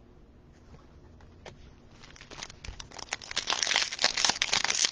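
Foil wrapper of a trading card pack crinkling and tearing as it is worked open by hand, starting about two seconds in and growing louder and busier; the wrapper is proving hard to open.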